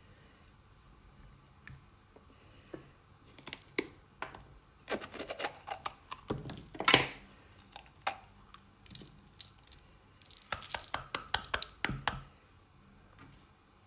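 Knife cutting into a raw green pepper and vegetables being handled over a ceramic baking dish: bursts of short, sharp clicks and cracks, loudest a little past the middle.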